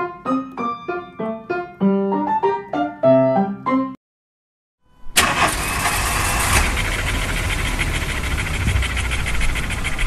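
Piano music with quick separate notes that cuts off about four seconds in. After a second of silence a steady, noisy rumble starts and runs on.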